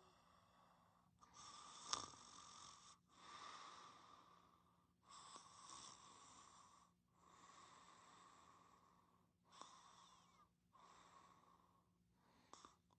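Soft, hissing snoring breaths, about six in a row, each one to two seconds long with short pauses between, and a small click about two seconds in.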